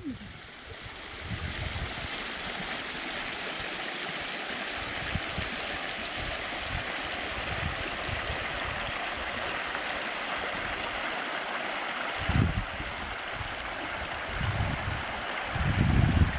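The Sisquoc River running shallow over rocks: a steady rushing of a stream riffle, with a few low rumbles in the last few seconds.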